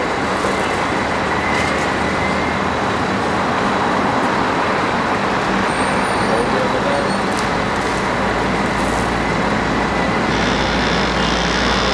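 Steady running noise of a mobile crane's engine, with a deeper low throb that comes in about two thirds of the way through.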